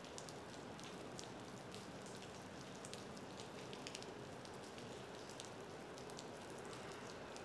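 Steady rain falling on wet pavement, with many separate drops heard as sharp ticks over a constant hiss.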